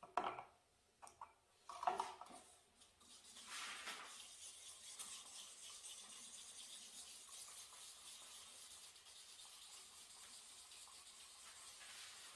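Water-based paint being brushed onto a test panel: a few light taps and knocks, then about eight seconds of steady, scratchy swishing of brush strokes that stops near the end.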